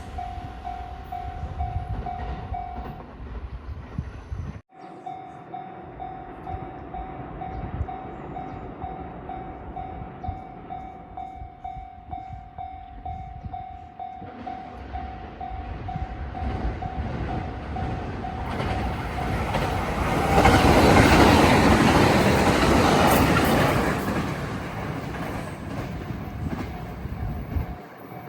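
Japanese level crossing's electronic warning bell ringing in a steady, even repeat, as a train passes through the crossing about two-thirds of the way in, its loud rumble and wheel noise swelling and fading over several seconds and drowning out the bell.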